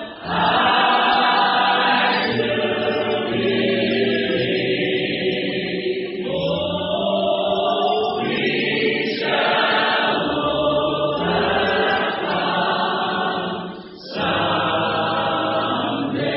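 Background music: a choir singing a slow song in long held phrases, with a brief break between phrases near the end.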